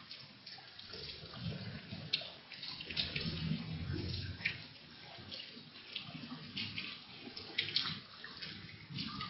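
Heavy rain falling steadily, with sharp ticks of drops striking something close by and a low rumble that comes and goes.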